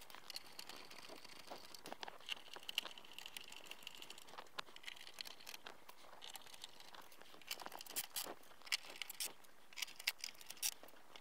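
Faint scattered clicks and short scraping sounds of screws being driven back into the metal case of a TRS-80 Model 3 computer.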